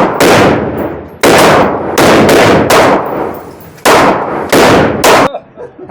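A firearm fired in quick succession at a shooting range: about nine loud shots, some in close pairs, each trailing a short echo, stopping about five seconds in.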